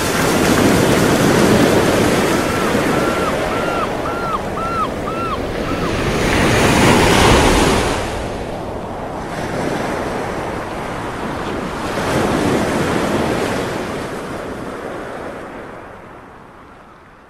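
Sea waves washing in surges, with wind across the microphone. A quick run of about seven short chirping calls comes a few seconds in, and the sound fades out near the end.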